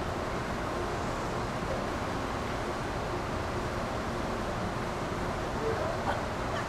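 Steady wind noise on the microphone, an even rushing hiss, with a couple of faint short sounds near the end.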